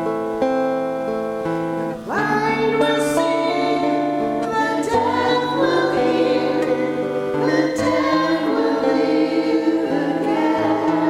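Church worship song: acoustic guitar and sustained instrumental chords, with singing voices coming in about two seconds in after a brief dip.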